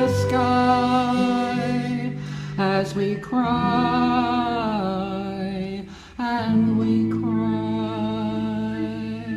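A women's choir singing a slow, unaccompanied lament in long held notes over a low sustained note, to the words 'The flames reach to the sky, as we cry and we cry'. There are brief breath breaks between phrases, the longest about six seconds in.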